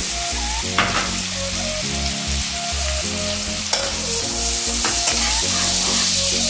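Chopped onions sizzling as they fry in hot butter and oil in a nonstick pan, stirred with a slotted metal spatula that scrapes and knocks against the pan a few times.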